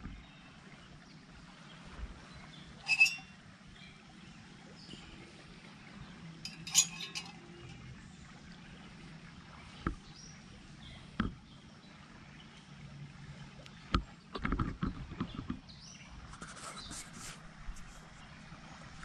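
A metal camping pot on a small canister gas stove clinks and knocks several times. There are two loud, ringing clinks about three and seven seconds in, single knocks later, and a quick run of clatter near the end, over a steady low background.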